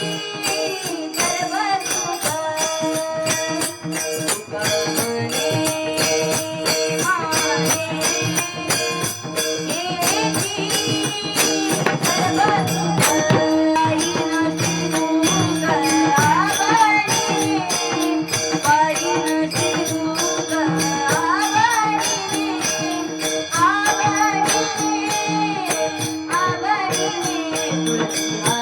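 Marathi devotional abhang (Warkari bhajan) sung by a male voice with ornamented, gliding phrases. A steady held drone accompanies it, and small jingling cymbals keep a quick, even beat.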